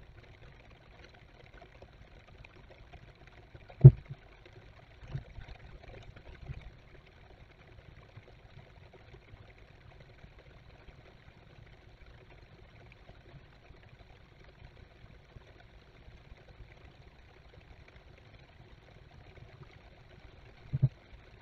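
Steady rain hissing on an outdoor webcam microphone, with a few low thumps: a sharp loud one about four seconds in, two softer ones soon after, and another near the end.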